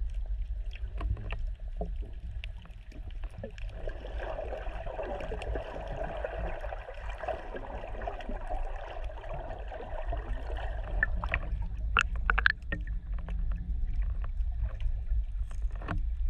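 Muffled underwater sound heard through a GoPro's waterproof housing while snorkelling: a low rumble of moving water with scattered sharp clicks and crackles, a few louder clicks bunched near the end.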